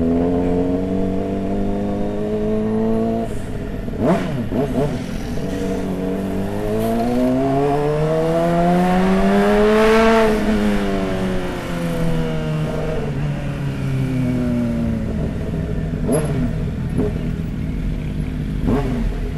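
Motorcycle engine running under way, its pitch climbing steadily as it accelerates for about four seconds and then dropping back as it eases off. A few sharp exhaust pops cut through, about four seconds in and again near the end.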